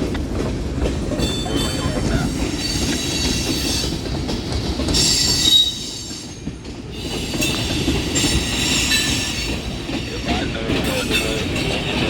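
Freight cars of a long Union Pacific manifest train rolling past on the rails, a steady loud rumble and clatter of wheels. High-pitched wheel squeal comes and goes over it, easing briefly about six seconds in.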